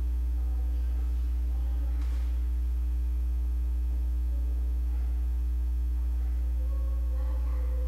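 Steady low electrical hum with a fainter steady tone above it, and a few faint clicks.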